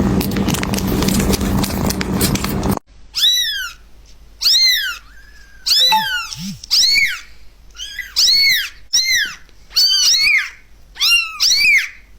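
A loud, even rushing noise with a steady low hum that cuts off suddenly about three seconds in. Then a kitten mewing over and over: high-pitched mews that rise and fall, about one a second.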